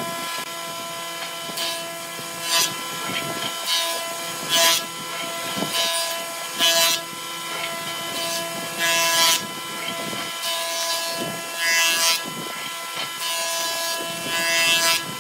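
Combination jointer-planer running with a steady hum and whine, and a short burst of cutting noise every second or two as a wooden board is pushed across its spinning cutter head.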